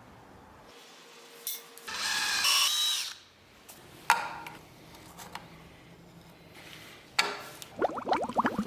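A power drill runs in one short burst of about a second, starting about two seconds in. A few sharp knocks follow, and a rapid run of short rattling sounds comes near the end.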